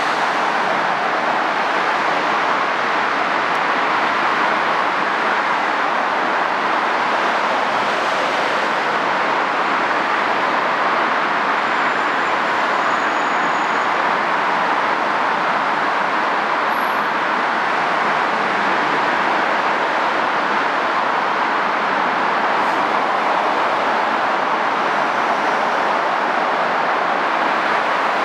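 Steady, even roar of heavy road traffic, with no single vehicle or tram standing out.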